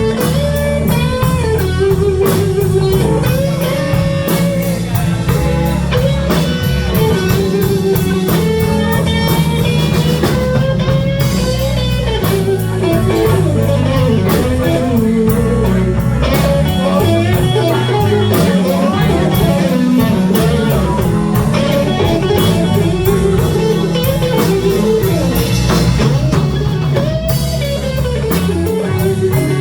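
Live blues band playing: electric guitar lead lines with bent notes over bass and a drum kit.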